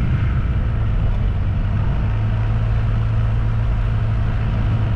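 Vehicle engine running steadily while under way, a constant low hum over road noise.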